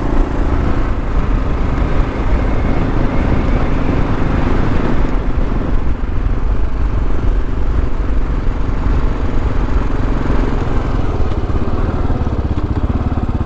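2023 Kawasaki KLR 650's fuel-injected single-cylinder engine running steadily as the bike gets going on the highway.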